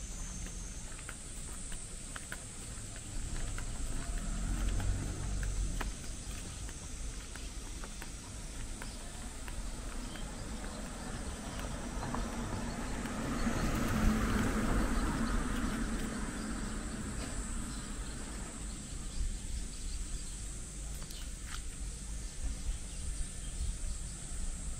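Outdoor insects keep up a steady high-pitched drone. Light ticks run through it, and a broad swell of noise rises and fades about halfway through.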